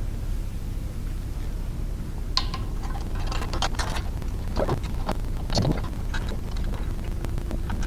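Irregular metallic clicks and clinks of bolts and tools as the grinder motor is bolted to the tilting base. They start about two seconds in, some in quick clusters, over a steady low hum.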